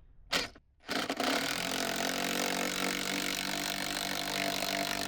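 A power driver running steadily for about four seconds, driving a 3/8-inch lag bolt into a 4x4 post, then stopping abruptly; a short knock comes just before it starts.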